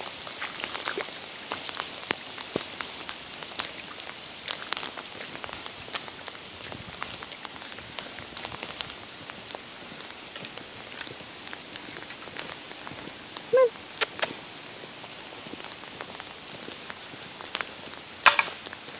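Steady rain falling on wet pavement and grass, with many single drops ticking. A brief pitched sound comes about two-thirds through, and a louder knock near the end.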